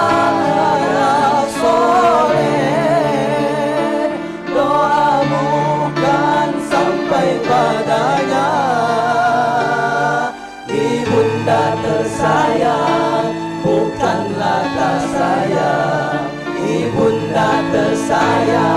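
Music: a song with choir-like singing over sustained chords, with a brief break about ten and a half seconds in.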